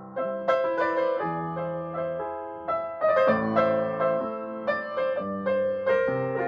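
An upright piano played solo: a melody over chords, notes struck and left to ring, with a new phrase starting just after a soft held chord at the very beginning.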